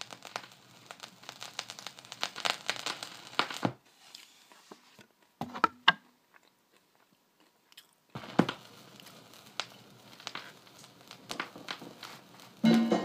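Turntable stylus on a vinyl record: surface crackle and clicks while the tonearm is handled, then a few seconds of near quiet with a couple of knocks. About two-thirds of the way through a thump marks the needle setting down, followed by lead-in groove crackle and the music starting near the end.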